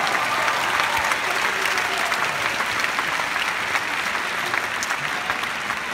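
Arena crowd applauding a finished point in a tennis match, with dense steady clapping that eases slightly near the end.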